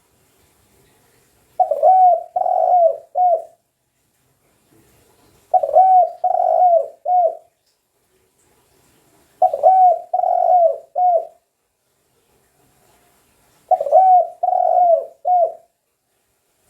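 Spotted dove cooing: the same phrase of three or four coos repeats about every four seconds, four times, with silence between.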